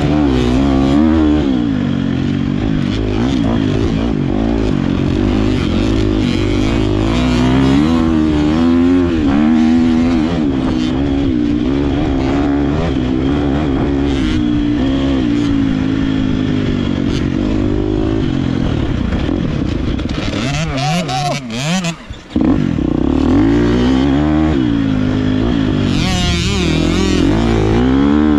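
GasGas MC250 two-stroke motocross bike ridden hard on a sandy track, its revs rising and falling through the turns. About three-quarters of the way through, the throttle is briefly shut and the engine nearly drops out, then it revs back up.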